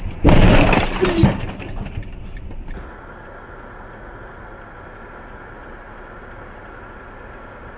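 A vehicle collision: a loud crash about a quarter second in, followed by crunching and scraping for about two seconds with a second bang about a second in. It then gives way abruptly to steady, much quieter road noise heard from inside a moving car.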